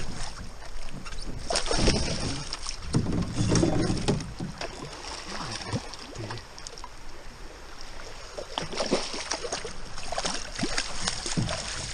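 A hooked fish thrashing and splashing at the surface beside a small rowboat while it is played and netted. The splashes are irregular, with sharp knocks among them, and they come thickest near the end.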